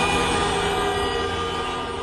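A held chord of many steady tones fading out evenly.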